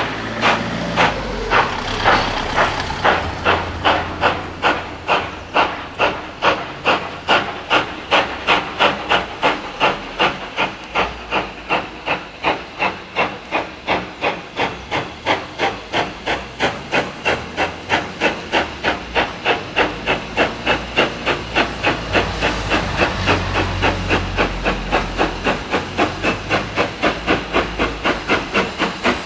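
Steam locomotive working steadily under power, its exhaust beating out an even chuff at about three beats a second. A low rumble swells for a few seconds about three-quarters of the way through.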